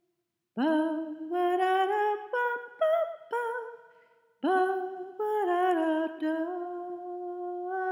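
A slow solo melody in two phrases, each phrase opening with a slide up into the first note and then moving through held notes.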